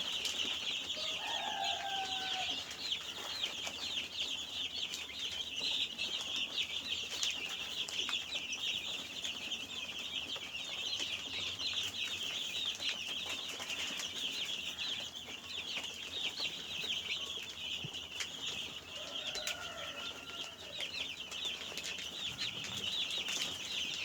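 A brood of twelve-day-old chicks peeping continuously in a dense, high-pitched chorus, with a lower call heard twice, about a second in and again near the end.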